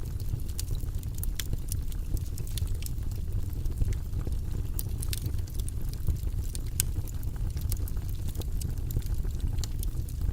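Fire burning in a fireplace: a steady low rumble of the flames with frequent small crackles and pops.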